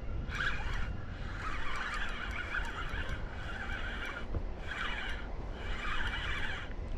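Gulls calling: about five drawn-out, whinny-like cries in a row over a low steady rumble of wind and water.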